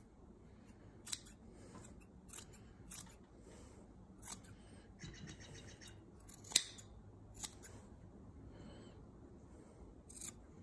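Scissors snipping through cotton T-shirt fabric in a string of separate cuts, one much sharper than the rest about two-thirds of the way in.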